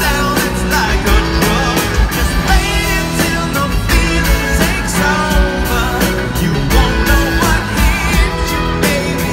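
Live rock band playing, heard from the audience in the hall: a lead vocal over electric guitars and a steady drum beat.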